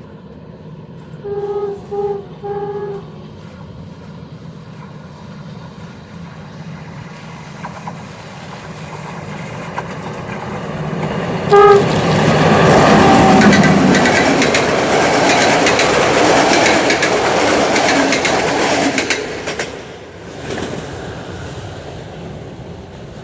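A train sounds its horn in three short blasts, then gives one more sharp blast, the loudest moment, about halfway through. The train then passes close by with a loud rushing rumble of wheels on rail, which drops off about twenty seconds in and fades.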